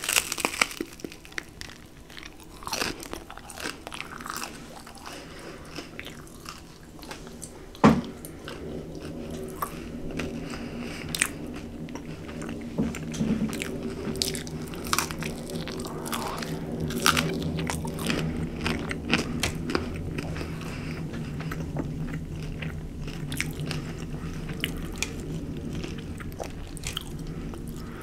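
Close-miked eating: biting into and chewing chicken wings and a slice of gluten-free pizza, many short crackly mouth sounds. One sharp knock about eight seconds in, and a low steady hum underneath from about nine seconds on.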